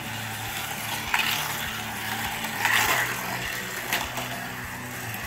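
Hot Wheels electric slot cars running on the plastic track: a steady motor whir and hum, with a few sharp plastic clicks and clatters, the loudest about three seconds in.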